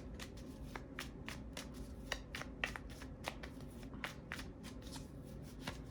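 A deck of tarot cards being shuffled by hand: a run of short, crisp card snaps and flicks, about four a second.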